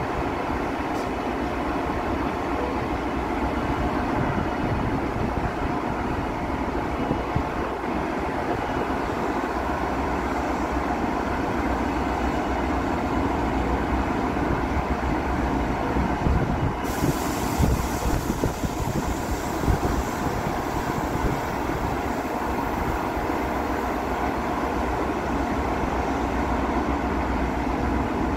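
Siemens Charger SC-44 diesel locomotive idling with a steady hum while standing with its train. Partway through, a steady high hiss comes in suddenly and stays.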